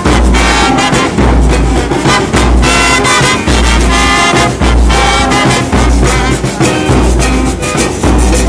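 Murga band music: trumpets and trombones play a melody over a steady bass pulse about once a second.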